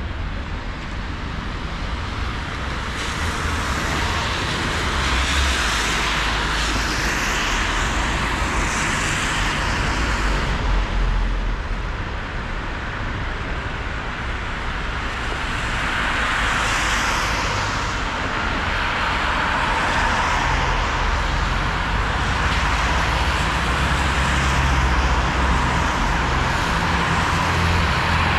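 Street traffic passing on a rain-wet road: tyre hiss swelling and fading as vehicles go by, over a low engine rumble.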